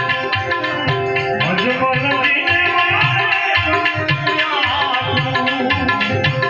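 Indian folk music: tabla playing a quick, steady rhythm under a melody instrument that holds and slides between notes.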